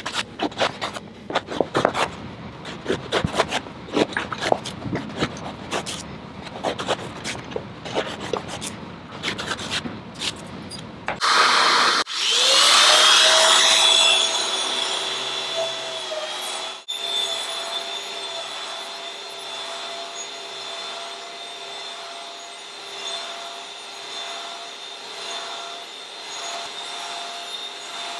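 Tufted rug pile rubbed by hand in quick, irregular strokes; then an electric rug shearing machine with a vacuum hose starts up about 12 s in, rising quickly in pitch, and runs with a steady whine as it is pushed over the pile, shearing it level.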